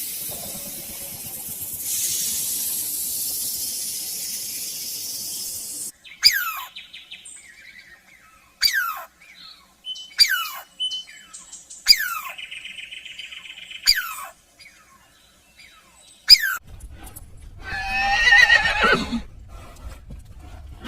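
A sequence of animal sounds. First comes a steady hiss for about six seconds. Then a bird gives a series of sharp, high, downward-sliding calls about every couple of seconds, with a short high trill among them. A louder, rougher animal call comes near the end.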